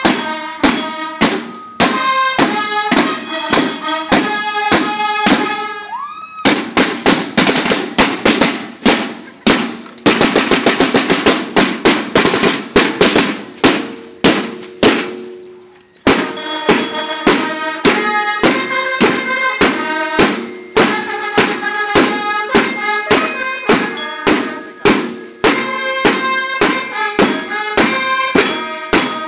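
Marching band drum line playing snare drums with sticks in a driving rhythmic cadence, with pitched ringing notes over the strokes. A stretch of very fast, closely packed strokes runs through the middle.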